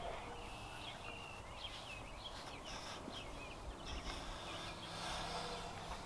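Faint outdoor birdsong: scattered short chirps and trills from small birds over a low, steady rumble.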